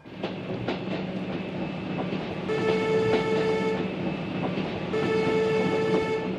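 Train horn sounding twice, two steady-pitched blasts of about a second and a half each, over a steady low hum with faint clicks.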